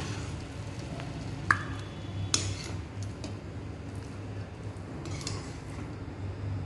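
A spoon scraping and clinking against a metal kadai and a steel serving bowl as chicken fry is spooned out, with a few sharp clinks, the loudest about one and a half seconds in with a short ring, over a steady low hum.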